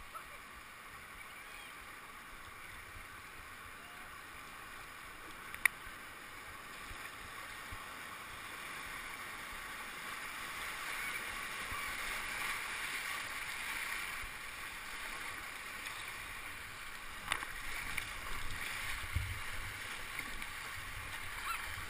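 Rushing whitewater of a river rapid heard from a kayak running it, growing louder as the boat enters the broken water, with paddle strokes splashing in the last few seconds. A single sharp knock about six seconds in.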